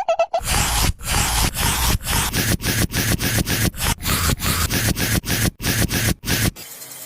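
Rough scraping or rubbing strokes, repeated about two to three times a second, that stop abruptly near the end.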